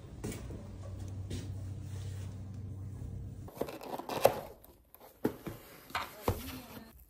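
A steady low hum, then about three and a half seconds in a cardboard takeaway chicken box being torn open: the flaps rip and scrape loose, with one loud rip. Several short knocks of the cardboard lid and flaps follow.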